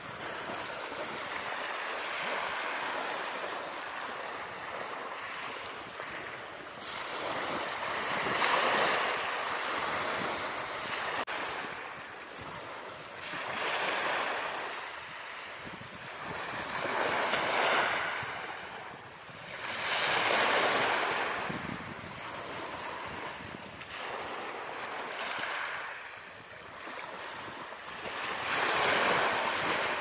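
Ocean surf: waves washing in as a rushing hiss that swells and fades every few seconds.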